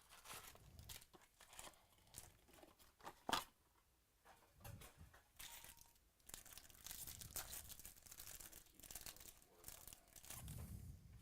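Faint tearing and crinkling of foil trading-card pack wrappers as Topps Chrome packs are opened and handled, with one sharp tap about three seconds in.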